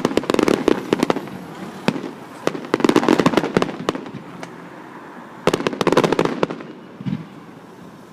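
Fireworks going off in three clusters of rapid crackling bangs, each about a second long, with a single crack near the end.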